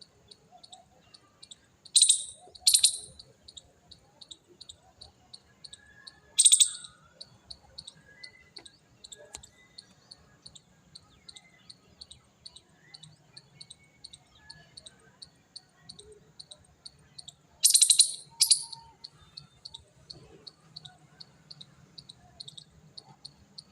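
Insect chirping in a steady rhythm of about three high chirps a second, broken by five loud, short, rasping bursts: a pair about two seconds in, one at about six and a half seconds, and another pair at about eighteen seconds.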